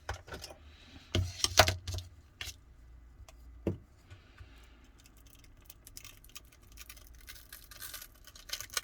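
Scattered light clicks and taps from handling a smartphone and small repair tools on a workbench, a few sharper knocks about a second and a half in and a cluster near the end.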